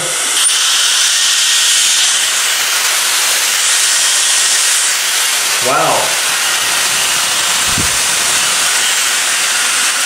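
Dyson Supersonic hair dryer with its gentle air attachment running on a raised power setting: a loud, steady rush of blown air.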